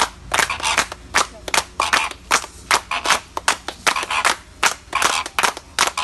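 A small group of people clapping hands together in a steady rhythm, about two to three claps a second.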